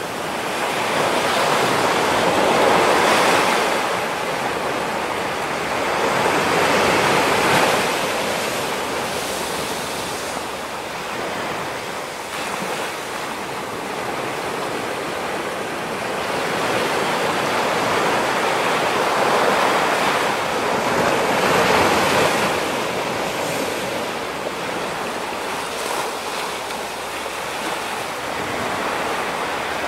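Ocean surf: waves breaking and washing in, swelling louder every few seconds and then easing off.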